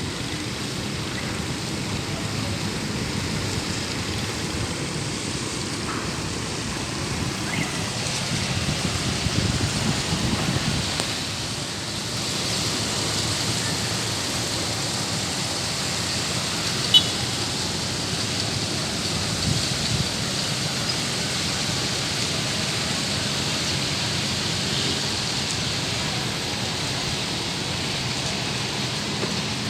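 Heavy rain pouring down, a steady hiss that swells a little for a few seconds, with one sharp click about halfway through.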